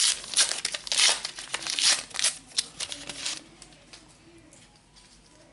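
A foil trading-card booster packet crinkling and tearing as it is pulled open by hand: a rapid run of crackles that stops about three and a half seconds in.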